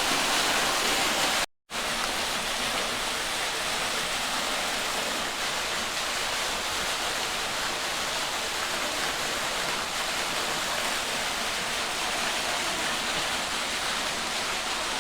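Steady rush of a small waterfall's falling water, a hiss strongest in the upper range. It drops out for an instant about a second and a half in.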